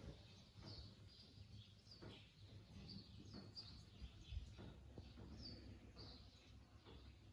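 Near silence, with faint birds chirping in short downward notes, about two a second.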